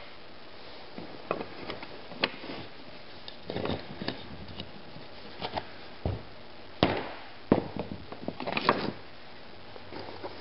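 Soft hammer striking a bent steel chisel held between wooden blocks to bend it straight: a few scattered sharp knocks with handling clatter between them.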